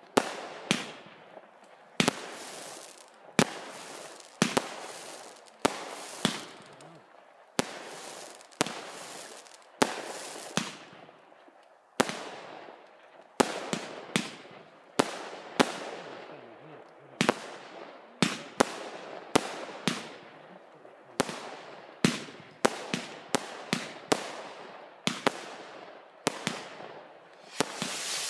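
Fireworks going off in a rapid series of aerial bursts: a sharp bang about every second, each trailing off in a fading rush. Near the end a dense, loud hiss builds up.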